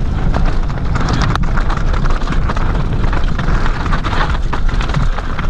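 Mountain bike descending a rough trail of loose rock at speed: tyres crunching over gravel and the bike clattering over the bumps, with wind rushing over the microphone.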